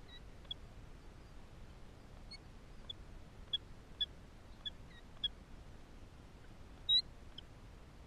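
Killdeer at the nest giving short, high peeps: scattered at first, then about one every half second from about three seconds in, with a louder, longer note near the end.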